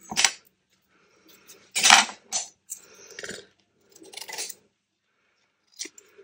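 Blue-handled scissors cutting around a card tag layered with fabric and lace: a handful of separate snips with small metal clinks of the blades, the loudest about two seconds in.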